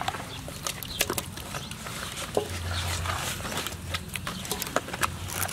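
Wet squelching and scattered sharp clicks of raw giant trevally steaks being turned and rubbed with marinade by hand in a metal basin.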